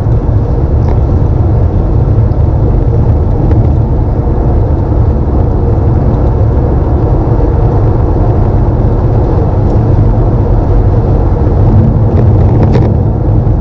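Car driving, heard from inside the cabin: a loud, steady low road and engine rumble.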